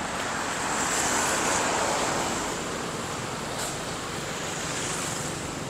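Street traffic noise from passing vehicles, swelling as one goes by about a second in and then easing off.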